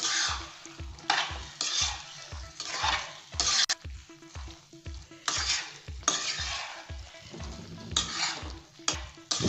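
A spatula stirring and scraping chicken pieces around a hot kadai in repeated strokes, each stroke stirring up a burst of sizzling as chilli powder is mixed in. A faint steady low beat runs underneath.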